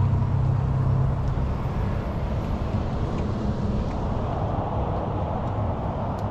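Steady outdoor rumble with a low motor hum that fades away about a second and a half in.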